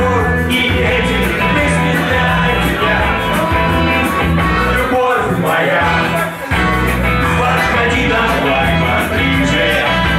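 Live rock band playing loudly, with sung vocals over electric guitar, bass and drums; the low end drops out briefly a little past halfway before the full band comes back in.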